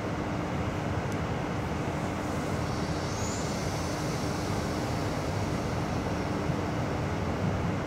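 Steady rumble of a passenger train heard from inside the carriage as it moves slowly, with a steady low hum.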